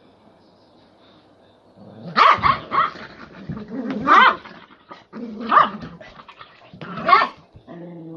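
Two elderly miniature poodle/Maltese dogs fighting, barking and growling at each other in about five sharp, loud outbursts that start about two seconds in.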